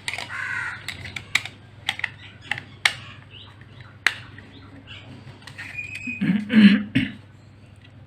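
Sharp plastic clicks and taps as the snap-on cover of a plastic remote-control receiver box is handled and pressed back into place, with crows cawing, loudest about six and a half seconds in.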